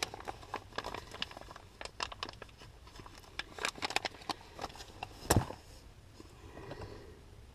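Hands handling a metal seat-riser bracket and its packaging: scattered light clicks, rustles and knocks, with one louder knock about five seconds in.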